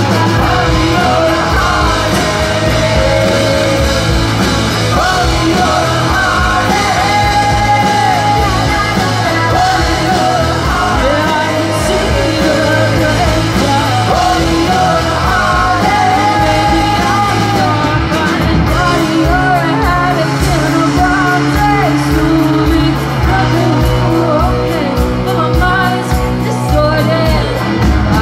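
Live rock band playing loud: a woman singing lead over electric guitars, an electric bass guitar and a drum kit.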